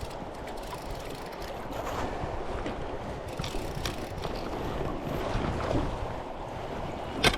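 Wind buffeting the microphone over water moving around a small inflatable river raft as it drifts, with two sharp clicks close together near the end.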